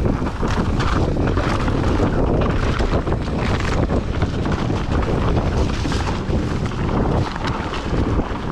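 Wind rushing over the microphone while a mountain bike descends a rocky trail at speed, its tyres rolling over rock and dirt, with frequent small knocks and rattles from the bike over bumps.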